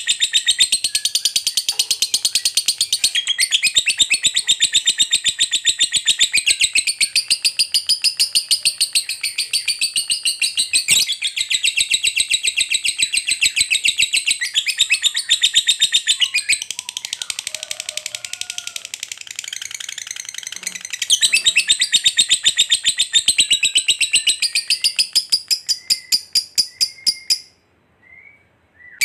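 Lovebird giving its long 'ngekek' chatter: an unbroken, rapid string of shrill high chirps, many each second. It dips in loudness about two-thirds of the way through, then comes back, thins out and stops shortly before the end.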